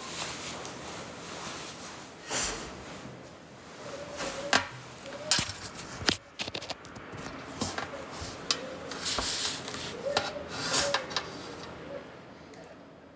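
Irregular rustling and rubbing with scattered sharp knocks, like things being handled close to the microphone.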